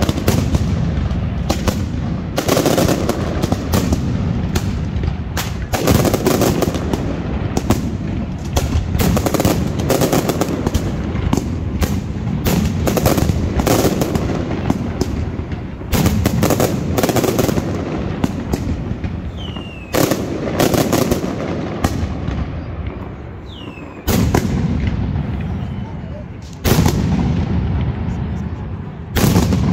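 Mascletà firecrackers going off in a dense, rapid run of loud bangs that merge into a rumbling echo. A few short falling whistles come in around the middle, and a fresh, heavier volley strikes near the end.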